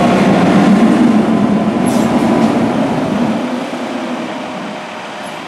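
Fire apparatus passing on an emergency response, with a loud, steady low-pitched drone that fades away after about three and a half seconds.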